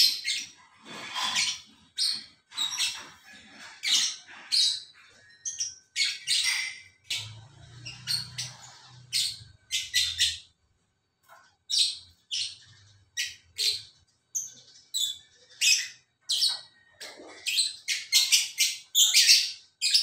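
Lovebirds chattering with a run of sharp, shrill chirps and squawks, several a second, with a short lull about halfway through: the quarrelsome chatter of a pair.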